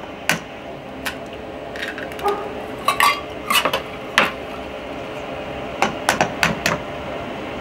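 Wire whisk clinking and tapping against a stainless steel mixing bowl of thick chocolate batter, in irregular knocks, some with a brief metallic ring.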